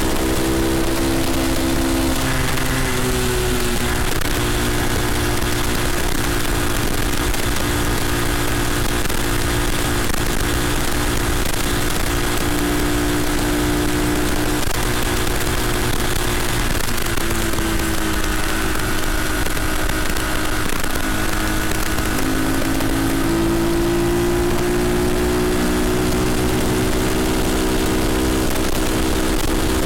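Red Cat CT70-clone mini bike's small single-cylinder engine running under way on a road ride. Its pitch sags a little past the middle, then climbs again as the throttle opens.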